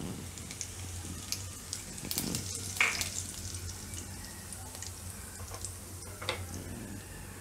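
Cumin seeds sizzling in hot oil at the start of a tempering, with scattered small pops and crackles.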